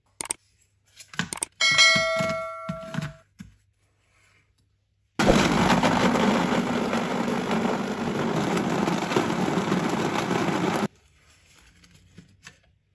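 Electric blender running for almost six seconds, blending milk with dates and custard powder; it starts and cuts off abruptly. A few seconds before it, some clicks and a short ringing ding.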